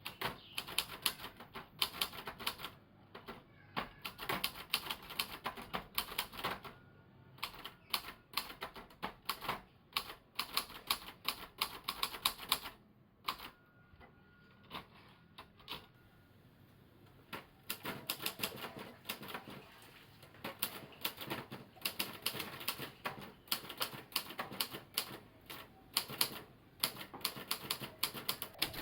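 Royal TA 240 typewriter being typed on: rapid runs of key strikes, the type hitting the platen, with a lull of a few seconds midway before the typing resumes.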